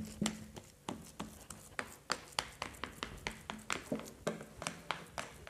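Plastic spatula tapping and pressing a mashed tofu mixture flat in a plastic food container: a steady run of light taps, about three a second.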